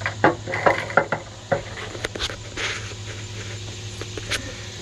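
Hands working at a riding mower's gas tank: scattered clicks and knocks, with a short scrape or rustle about halfway, over a steady low hum.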